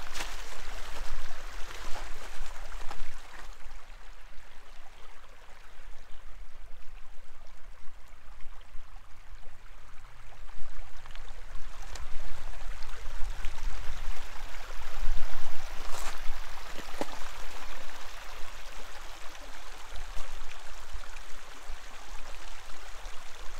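Shallow, muddy Mojave River running over gravel and stones: a steady rushing, rippling water sound.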